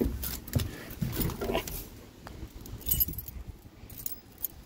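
Keys jangling and clicking with handling clatter as a truck is readied to start, and wind buffeting the microphone at the start. A couple of short whining sounds come about a second in.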